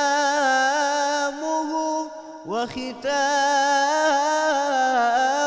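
A young man's solo voice singing Islamic religious inshad, a Ramadan hymn, into a microphone, drawing out long melismatic notes with a wavering vibrato. Two long sung phrases, with a short break for breath about two and a half seconds in.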